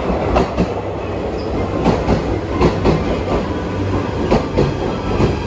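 JR Shikoku 8600 series electric limited-express train pulling into a station platform: a steady rumble of the running gear with repeated sharp clacks of the wheels passing over rail joints.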